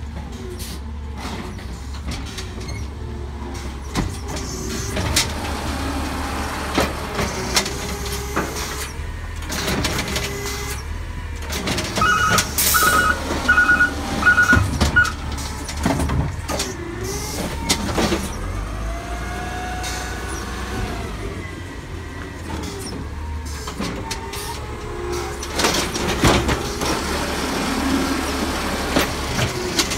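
Natural-gas automated side-loader garbage truck running while its hydraulic arm grabs, lifts and dumps wheelie carts: steady engine rumble, a rising and falling hydraulic whine, and repeated clattering knocks of the carts against the arm and hopper. A run of about five short beeps comes about twelve seconds in.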